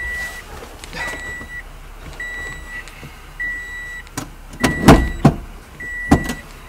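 Car's electronic warning chime beeping steadily, six even beeps about a second apart, inside a 2010 Toyota Yaris cabin. A few knocks and clunks from inside the car come about four to six seconds in, the loudest about five seconds in.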